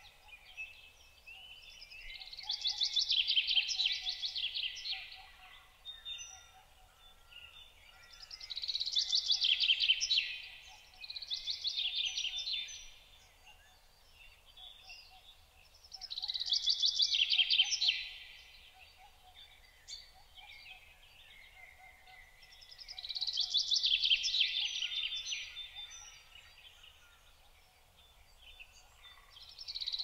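A songbird singing a short, fast-trilled song phrase over and over, about every six or seven seconds, with faint softer chirps between the phrases.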